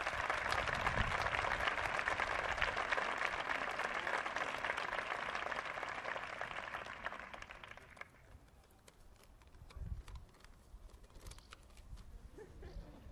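Audience applauding: many hands clapping in a dense patter that dies away about eight seconds in, leaving a few scattered claps.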